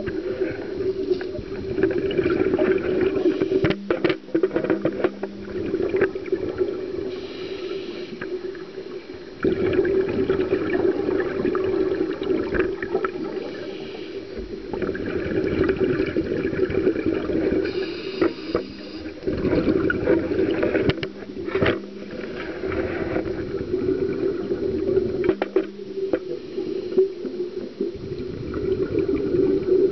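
A scuba diver breathing through a regulator underwater, heard through a waterproof camera housing: bubbling exhalations come in surges every few seconds, with quieter gaps between breaths.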